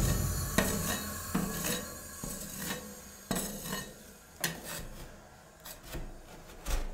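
Metal ice-cream spatulas scraping and tapping on the steel cold plate of a rolled-ice-cream machine, working the edges of a frozen ice cream sheet: about a dozen short scrapes and sharp metallic clicks.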